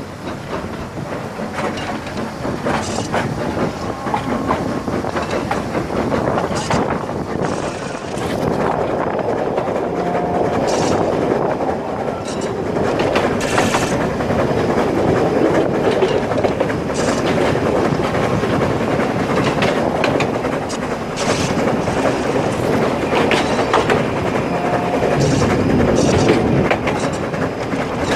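Narrow-gauge passenger train running along the line: a steady rumble from the wagon, with sharp clacks of the wheels over rail joints every few seconds.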